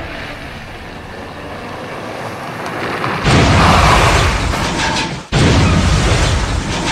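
Car crash: a rumble that builds, then about three seconds in a sudden loud crash as the car tumbles down a rocky slope. The noise cuts out for an instant a little after five seconds, then loud crashing and clattering go on.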